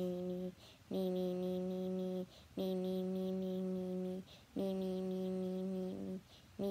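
A boy humming one steady note, held for about a second and a half at a time with a short breath between, about four times over.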